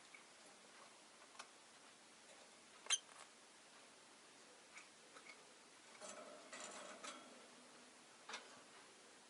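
Faint, scattered clicks and taps, the sharpest about three seconds in, with a brief soft rustle about six seconds in: a rosy-faced lovebird quietly moving and pecking about its cage, with no chirping.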